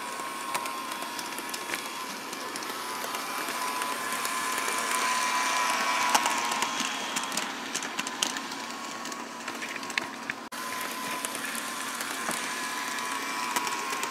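A cheap Bachmann HO-scale model locomotive running around its track with a steady motor and gear whine and scattered clicks, getting louder through the middle and easing off again. The whine comes from its cut-rate motor and drivetrain, the mark of a rough-running, unrefined locomotive.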